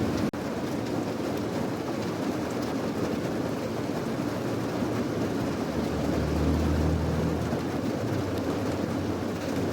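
Steady rain with a low rumble under it that swells briefly just after the middle. The sound cuts out for an instant near the start.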